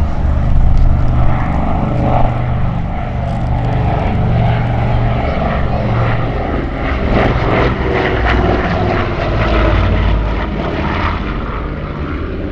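Avro Anson 19's twin Armstrong Siddeley Cheetah radial engines running steadily.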